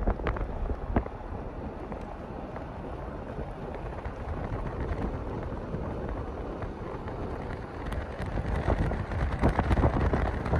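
Wind buffeting the microphone: a steady, rough rushing noise with a deep rumble. A few short crunches come through near the end.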